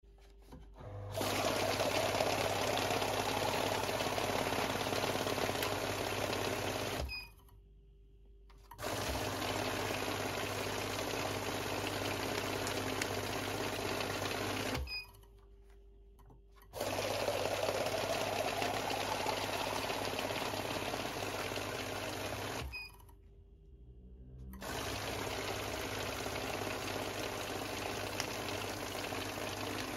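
Electric banknote counting machine running four times, riffling a stack of $100 bills through at a rapid, steady rate for about six seconds each time. Each run ends with a brief high beep, and there is a pause of about two seconds between runs.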